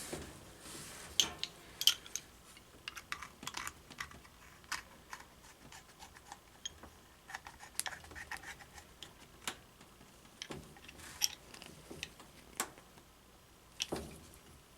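Scattered light clicks, taps and clinks of washing machine supply hose fittings being handled and unscrewed, irregular and a few a second.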